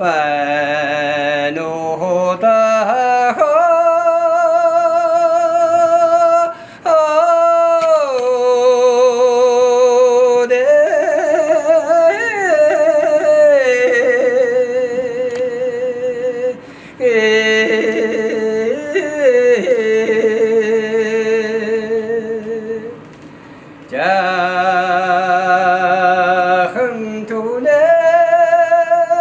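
A man singing a Mongolian long song (urtyn duu): long held notes with a quavering vibrato, joined by ornamented turns and glides, broken off briefly three times.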